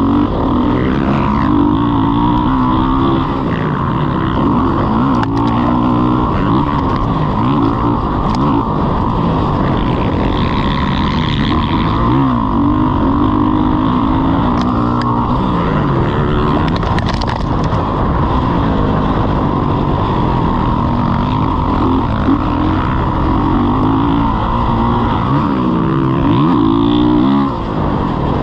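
Motocross dirt bike engine being ridden hard, revving up and down over and over as the throttle is worked, with its pitch climbing and dropping every second or two.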